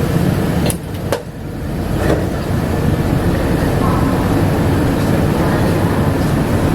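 Rubber-tyred Bombardier APM100 people-mover car running along its guideway, heard from inside the cabin as a steady low rumble. About a second in, two sharp clicks come with a brief dip in the noise, and then the rumble builds back up.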